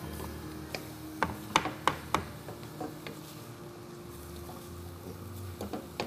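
A utensil clinking and scraping against a stainless-steel pot as a rice and vegetable mixture is stirred. A cluster of sharp clicks and knocks comes in the first two seconds, with a few more later, over a steady low hum.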